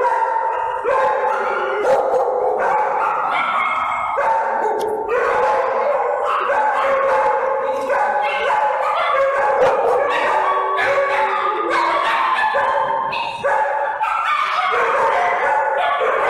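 Many small dogs barking and yipping over one another without a break.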